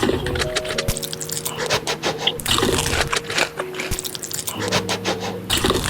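Wet eating sounds: a rapid run of clicks and smacks from chewing, over faint steady tones.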